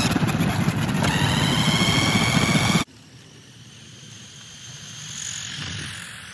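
A loud engine sound with a rough low rumble and steady high tones cuts off suddenly about three seconds in. It gives way to the much quieter high whine of an electric RC car's motor and tyres on asphalt, growing louder as the car drives past.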